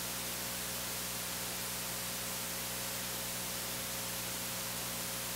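Steady hiss from the church's sound and recording system, with a low electrical hum under it and no other sound.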